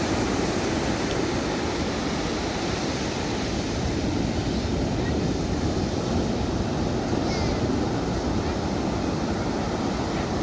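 Ocean surf washing onto a beach, a steady rushing noise that holds at an even level.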